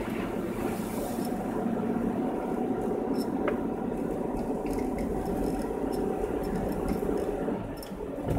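Car driving on a wet, slushy road, heard from inside the cabin: steady engine and tyre noise with a faint steady whine and a few small clicks, easing briefly near the end.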